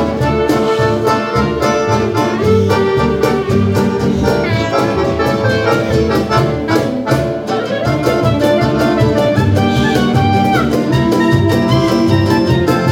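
Acoustic street band playing an upbeat tune: an accordion melody over acoustic guitar, plucked upright double bass and a cajón beat.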